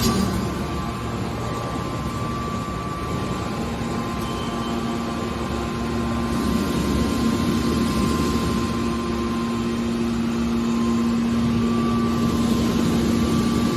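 Hydraulic aluminium can baler running: a steady machine hum from its hydraulic power unit, growing slightly louder about six seconds in.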